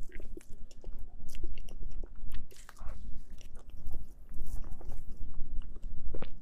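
Close-miked eating sounds of someone biting and chewing mousse cake: an irregular run of many small clicks and smacks from the mouth.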